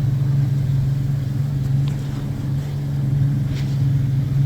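Boat engine running at a steady speed, an even, unchanging drone.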